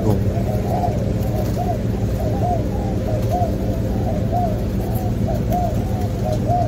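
Spotted doves cooing, short arched coo notes repeating about twice a second and overlapping at slightly different pitches, over a steady low hum.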